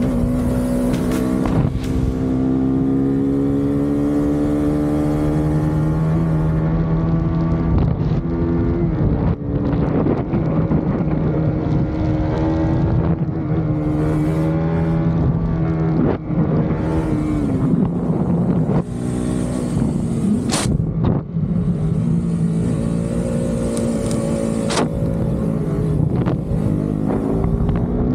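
Motorcycle engine running at road speed, its pitch holding steady for long stretches and rising and falling as the throttle is worked. A couple of sharp clicks come through in the second half.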